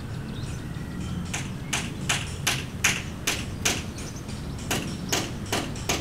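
A run of about ten sharp knocks, two or three a second, like hammer taps, starting about a second and a half in with a short break near the middle, over a steady low rumble.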